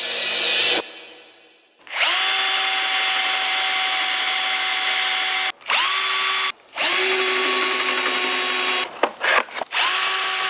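Power drill running in repeated runs, each spinning up to a steady whine, with a few short quick triggers near the end, while screws are driven. The tail of a music track ends about a second in.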